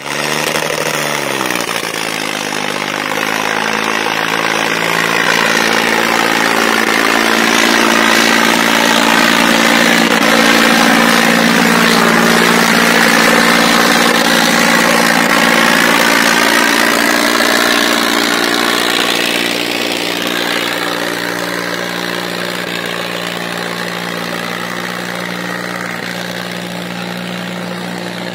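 Escort 340 tractor's diesel engine pulling a disc harrow through the soil under heavy load. It revs up over the first second or two, then runs steadily. It grows louder as the tractor passes close by around the middle and fades somewhat as it pulls away.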